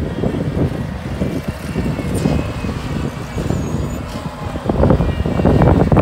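Bobcat compact track loader running and backing down a dirt slope: diesel engine noise with the rattle of the machine on its tracks, growing louder about five seconds in.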